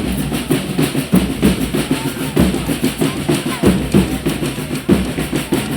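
Reisado (Folia de Reis) percussion: snare and bass drums beating a rapid, steady rhythm.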